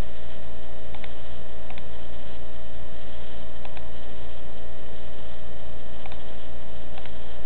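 Steady electrical hum and hiss, with a few faint clicks spread through it, typical of a computer mouse being clicked.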